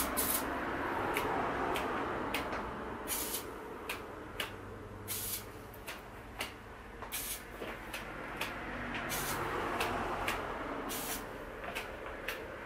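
Aerosol spray can of white paint given many short, irregularly spaced spurts, each a brief hiss, as the nozzle is tapped again and again to spatter star-like dots of white paint.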